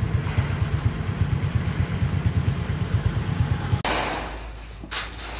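Doosan wheeled excavator's diesel engine running with a steady rhythmic low chug, cutting off abruptly about four seconds in. A fainter hiss follows, with a single sharp tap near the end.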